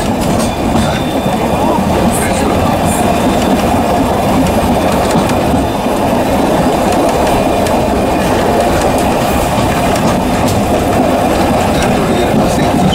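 Tourist train carriages running along the track: a steady, loud rumble of wheels on rails with a light clatter.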